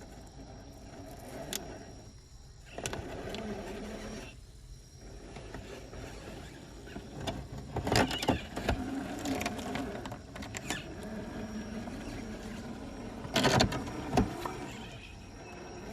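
Scale RC crawler's 550 brushed motor and geartrain whining, rising and falling in pitch as the throttle changes. Several sharp knocks, loudest about eight and thirteen and a half seconds in.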